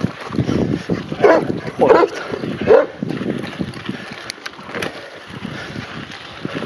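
Mountain bike tyres rumbling over a dirt track, with wind buffeting the microphone; about a second in, a dog barks three times in quick succession.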